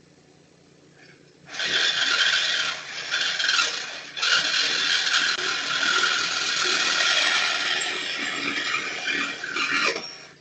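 Power saw cutting through a car's exhaust pipe: a thief sawing off the catalytic converter. It starts abruptly about a second and a half in, falters briefly, then runs loud and steady until it cuts off near the end.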